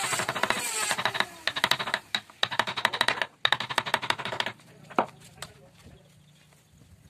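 Quick, light, repeated taps of a small hammer on a wood-carving chisel as it cuts detail into a wooden door panel. The taps stop about four and a half seconds in, with two single taps shortly after.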